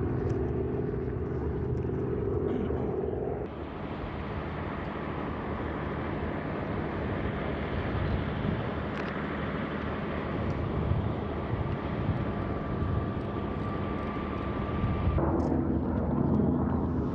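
Diesel locomotive engine running with a steady hum as it slowly moves the Soyuz rocket on its rail transporter. About three seconds in the sound changes abruptly to a rushing noise with a faint steady whistle, and the engine hum returns near the end.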